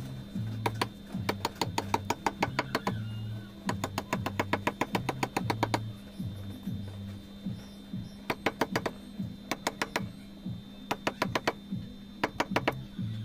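Quick light taps of a wooden mallet on a steel chisel cutting into a soft natural-stone relief panel. The taps come in runs of several at a time with short pauses between runs, over background music.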